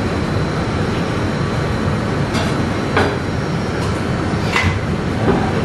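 Steady rushing noise of a gas stove burner under a pan of simmering broth, with a few short clinks of utensils against the dishes.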